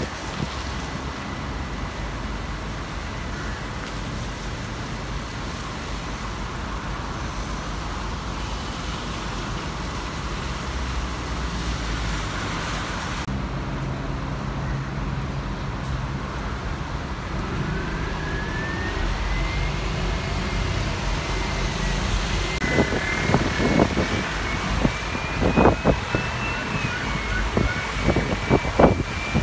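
City tour bus driving through traffic: steady engine rumble and road noise. In the second half a whine rises in pitch and then holds, and a few short louder sounds come near the end.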